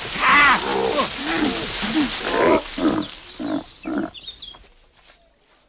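A bear growling and roaring in a run of short calls that grow sparser and fade out over about four seconds, over a rustle of earth and dead leaves that dies down after the first few seconds.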